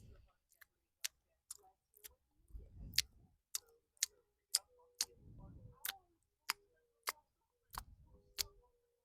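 Close-miked wet mouth clicks from finger licking, sharp pops about twice a second, with softer wet smacking between them at a few points.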